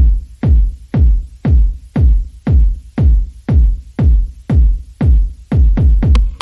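Electronic dance music with a heavy kick drum beating steadily about twice a second.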